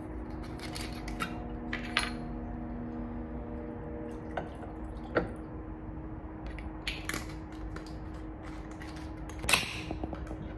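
Bourbon poured from a glass bottle over ice into a wine glass, with liquid splashing and ice and glass clinking. Several sharp clinks are spread through it, the loudest about a second before the end, over a steady low hum.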